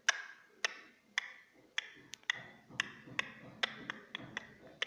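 A small ball tapping and bouncing on a hard floor as a cat bats it: about a dozen sharp, light taps at uneven intervals, two to three a second.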